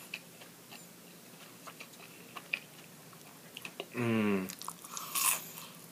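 Close-up mouth sounds of eating: soft smacks and chewing, a short hummed "mm" about four seconds in, then a crunchy bite into a crispy fried onion ring dipped in nacho cheese.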